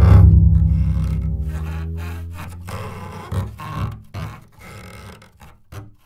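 Double bass used for effects: a deep low note hit hard at the start, ringing out and fading over two or three seconds, followed by a few short, irregular rubbing scrapes on the instrument.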